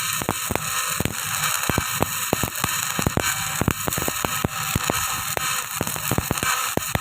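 Electric arc welding on a steel pile joint: the arc crackles and sputters steadily, with many sharp irregular pops over a constant hiss.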